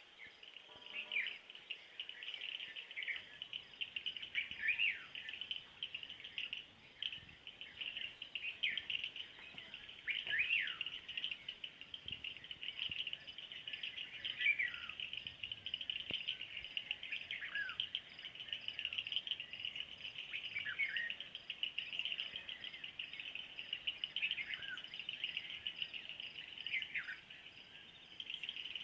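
Early-morning birdsong: one bird repeats a falling whistled note every couple of seconds over a dense, steady, high chatter of other birds or insects.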